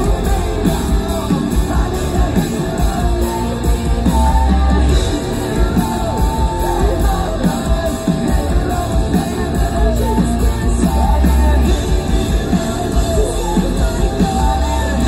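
Live rock band playing at full volume, with electric guitars, a heavy drum kit and bass under a sung and shouted lead vocal, recorded from the audience.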